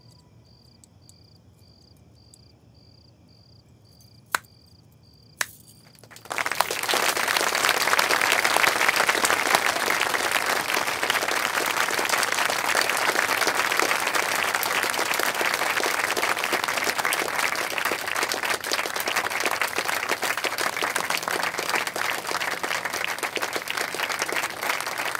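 Faint high chirps about twice a second and two sharp clicks in a quiet room, then about six seconds in an audience starts applauding loudly and keeps clapping steadily.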